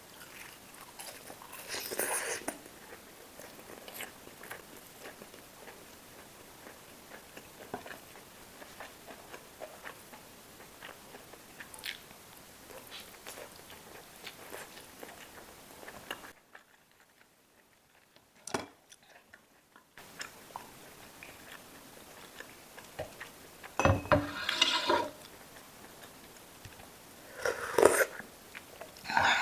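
Close-miked eating sounds: steady soft chewing, with louder bites about two seconds in and twice near the end. Midway it drops briefly to near silence.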